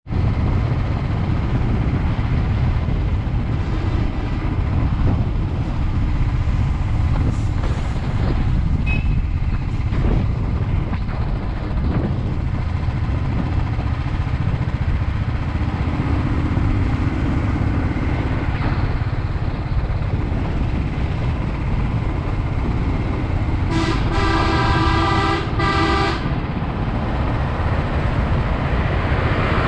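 Motorcycle running at steady road speed, a constant low rumble of engine and road noise. Near the end a vehicle horn honks twice in quick succession.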